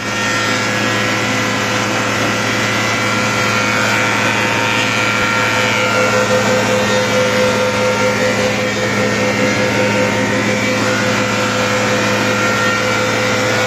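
Weinig Unimat 23 four-sided planer running with a wet (green) board feeding through its cutter heads: a loud, steady machine noise with a constant whine.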